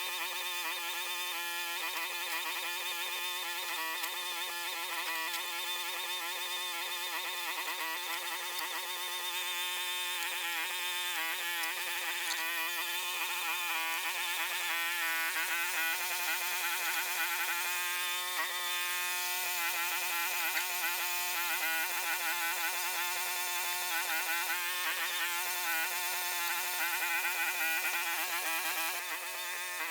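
Mini excavator running steadily, its small diesel engine and hydraulics giving a continuous buzzing drone, the pitch wavering slightly as the machine works.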